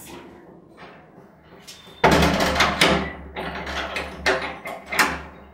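A flat's front door being pulled shut: a sudden loud bang about two seconds in, followed by several sharp knocks and rattles as it is latched.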